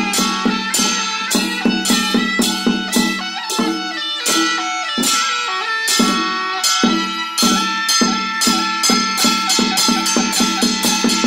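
Chinese temple ensemble: a barrel drum struck in a steady rhythm of about four beats a second and a hanging gong ringing, with a sustained melody that steps from note to note played over them.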